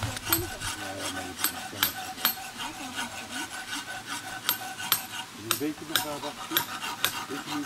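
A steel rasp filing a white stone sculpture, in repeated scraping strokes about two a second.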